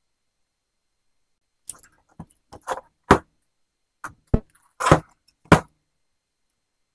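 New front brake pad hardware clips and pads being fitted into the caliper bracket: a string of about nine sharp clicks and knocks of metal parts, starting about two seconds in.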